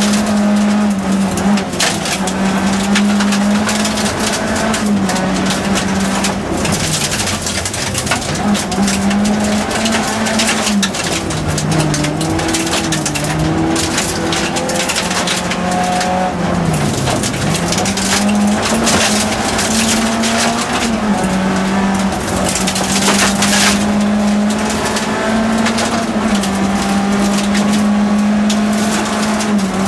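Nissan Primera rally car's engine, heard from inside the cabin, running hard at high revs with short steps in pitch, dropping off as the car slows for bends about 7, 12 and 17 seconds in. Gravel crunches and hisses under the tyres throughout.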